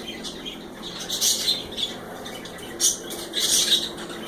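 Parrots giving short, harsh, hissy squawks: one about a second in, then two more close together around three seconds in.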